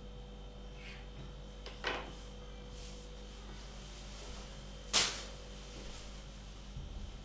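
Two sharp knocks on a wooden worktable as a knife and dough are handled: a lighter one about two seconds in and a louder one about five seconds in, over a faint steady hum.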